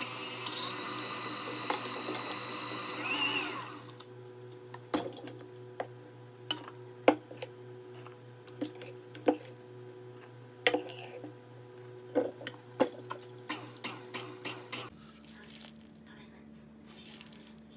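KitchenAid Ultra Power stand mixer running with a steady motor whine while creaming butter for buttercream frosting. It shuts off after about three and a half seconds. Scattered clinks and knocks of a metal measuring cup against the steel mixing bowl follow as icing sugar is tipped in.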